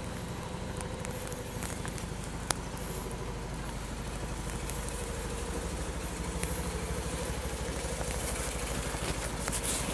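An engine idling steadily with a low, even pulsing, and a sharp click about two and a half seconds in.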